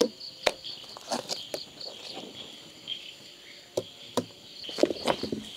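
Freshly ground urad dal batter being scooped by hand out of a stone grinding mortar into a steel bowl: scattered sharp knocks and wet slaps, several close together near the end. Insects chirr steadily behind it.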